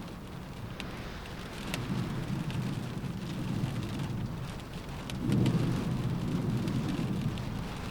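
Rain falling on a car roof, single drops ticking sharply over a steady patter, with a low rumble that swells about a second and a half in and again, louder, about five seconds in.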